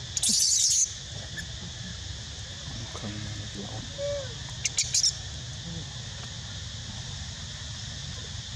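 Steady high insect drone, with a short loud hiss near the start and a few sharp clicks about five seconds in.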